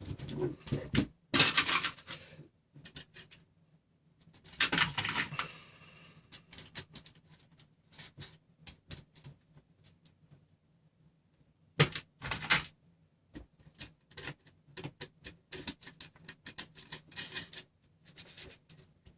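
Small metal hardware being handled: irregular clicks and rattles of nuts, washers and steel threaded rods as a printer frame is worked on by hand, with busier spells of clatter about a second and a half in, around five seconds in, and near twelve seconds in.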